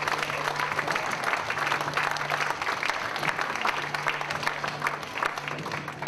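Theatre audience applauding, dense and sustained, with a low held musical note coming and going underneath.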